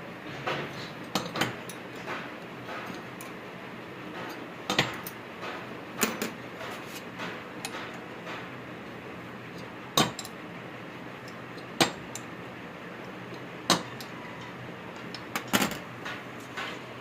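Irregular sharp metallic clinks and knocks of tools and parts being handled, about half a dozen loud ones over a steady background hiss.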